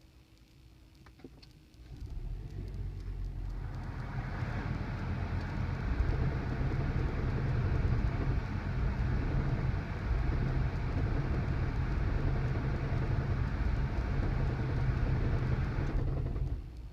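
2008 Toyota Prius's 1.5-litre four-cylinder petrol engine starting about two seconds in and running rough with an awful knocking, then cutting out near the end. The knocking is a misfire, later traced to four failed spark plugs.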